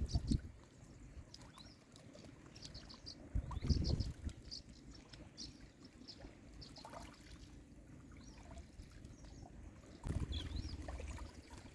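Small birds chirping in short, quick high calls over a faint low rumble, with louder low bumps about four seconds in and again near the end.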